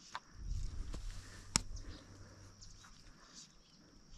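Quiet lakeside ambience: a steady high-pitched drone of insects with a few faint bird chirps. A short low rumble of handling noise comes about half a second in, and one sharp tap about a second and a half in.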